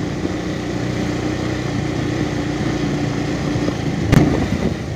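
Motorcycle engine running steadily as the bike rides along a rough road, with a single short thump about four seconds in.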